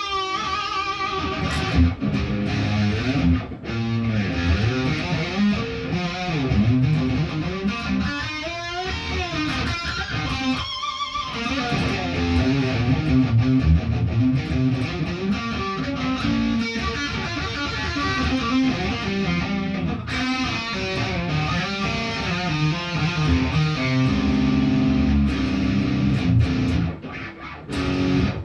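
Electric guitar being practised: a continuous run of strummed chords and picked notes, with wavering notes about eight to eleven seconds in and a short break near the end.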